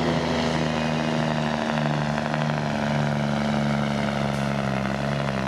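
Diesel engine of a DAF CF pulling truck running flat out under heavy load as it drags a weight-transfer sled, a steady loud drone. Its pitch drops a little about a second and a half in.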